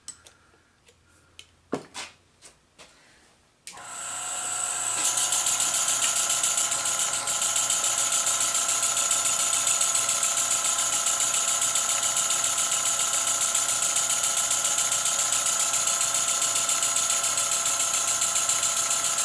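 A few light clicks, then about four seconds in the Stuart S50 model steam engine starts running on compressed air. It keeps up a steady exhaust hiss with a steady tone and a fast, even beat.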